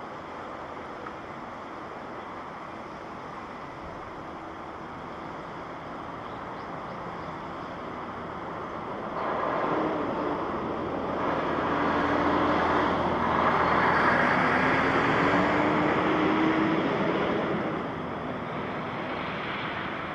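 Jet airliner passing close by on its landing, its engine noise swelling to a peak and dropping away near the end, with a low steady engine tone slowly rising in pitch. Wind and a steady outdoor rush run under it.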